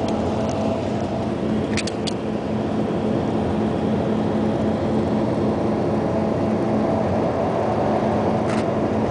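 Steady running noise heard from inside a moving vehicle: a constant rumble and hum, with a few brief sharp clicks about two seconds in and again near the end.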